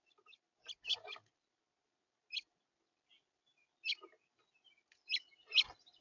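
House finches pecking and cracking sunflower seeds on a plastic feeder tray close to the microphone: a scatter of sharp taps and cracks, the loudest near the end with a knock in it.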